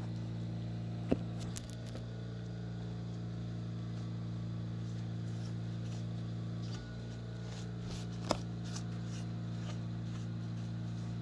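A steady low hum, with a sharp click about a second in and another about eight seconds in, and faint light ticks in between.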